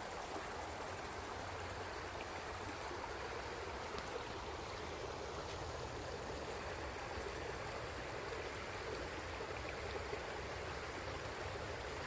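Steady rushing of a flowing river, cutting off abruptly at the end.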